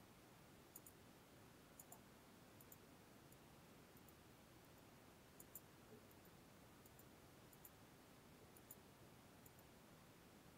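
Faint computer mouse clicks over near-silent room tone: about a dozen, spread irregularly and several in quick pairs, as a software wizard is clicked through page by page.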